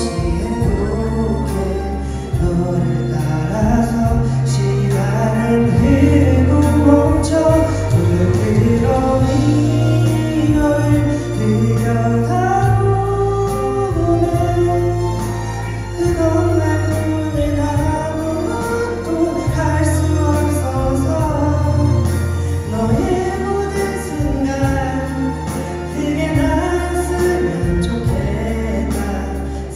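A man singing a Korean ballad into a microphone over musical accompaniment with a steady bass line, with held notes and a continuous melody.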